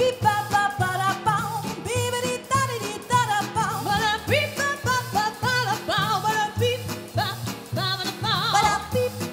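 Female vocal trio singing in close harmony with vibrato, over a swing backing with a steady bass line.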